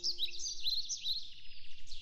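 A songbird singing nearby: a fast run of short, high chirping notes, several a second.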